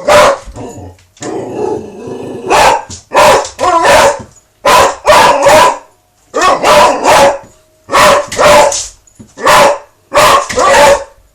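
A dog barking loudly and repeatedly in quick bursts of two or three, in a frenzy over the post. A quieter, rougher stretch comes about a second in.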